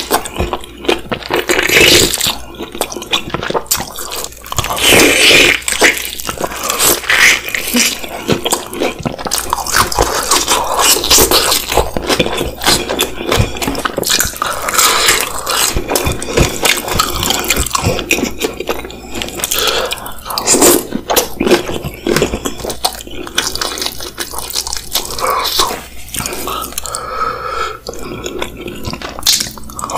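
Wet eating sounds of sauce-soaked fried chicken: biting and chewing with sauce squelching and dripping, a dense, irregular run of crackly clicks.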